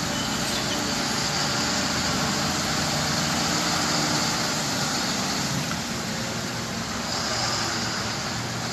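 Steady road traffic noise with a heavy truck's engine running.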